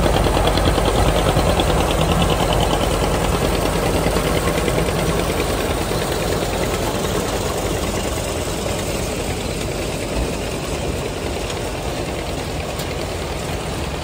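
John Deere 50's two-cylinder engine running under load as it pulls a corn picker, with the clatter of the picker's elevator carrying ears up to the wagon. The sound fades gradually as the rig moves off.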